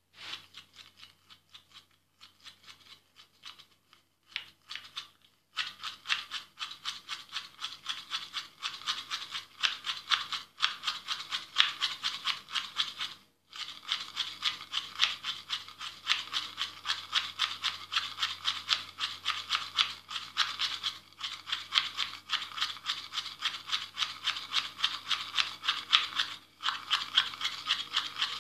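Manual toothbrush scrubbing teeth with rapid back-and-forth strokes, a bristly scraping. The strokes come in short spurts for the first few seconds, then run steadily, with brief pauses about 13 seconds in and again near the end.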